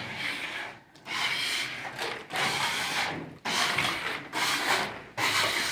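Rasping strokes of a hand tool working a board, about six in a row, each lasting most of a second with short gaps between.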